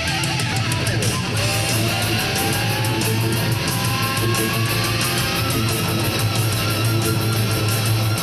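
Heavy metal riffing on a distorted electric guitar fitted with a DiMarzio DP100 Super Distortion humbucker, heard over a drum beat, with one long note sliding slowly upward in pitch over several seconds.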